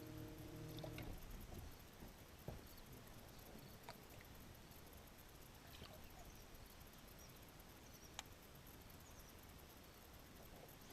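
Near silence: faint background hiss with a few scattered soft clicks, after a low steady hum stops about a second in.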